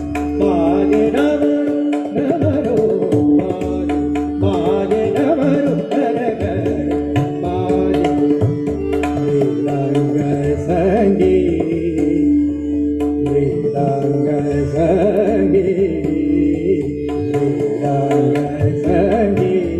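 Male vocalist singing a classical-style devotional song with winding, ornamented melodic runs, over a steady harmonium drone and tabla accompaniment.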